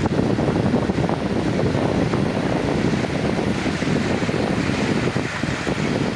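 Sea waves washing in steadily, with wind rumbling on the microphone.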